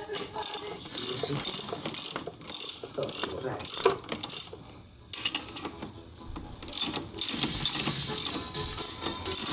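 Ratchet wrench clicking in quick runs as a fastener is turned, with a short pause about halfway through.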